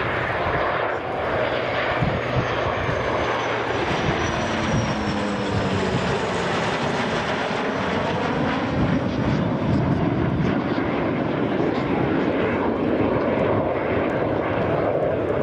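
Antonov An-26 twin-turboprop transport and two Saab JAS-39 Gripen jet fighters flying past in formation: loud, steady aircraft engine noise, with faint tones that slowly glide down in pitch as the aircraft approach.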